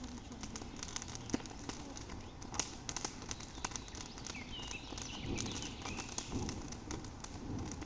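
Small campfire of wood crackling, with irregular sharp pops and snaps. A bird chirps briefly about five seconds in.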